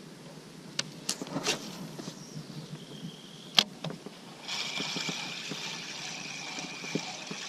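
A few sharp clicks, then about four and a half seconds in a spinning reel starts being cranked, its gears whirring steadily as the line is wound in on the retrieve.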